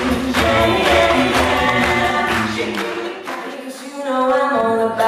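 Mixed male and female a cappella group singing in close harmony through a PA, with a sung bass line under the upper voices. The low bass part drops out for a moment about three seconds in, then comes back.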